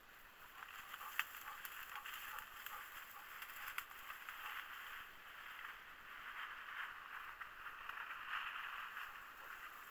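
Faint rustling in dry grass and brush, with a couple of small snaps or crackles.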